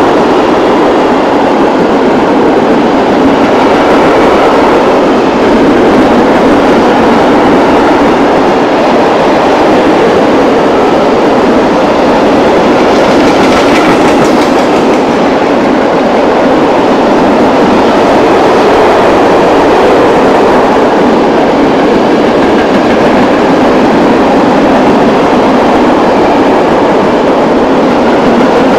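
Loaded freight train of open-top gondola wagons rolling past close by at speed: a loud, steady rumble and clatter of steel wheels on the rails.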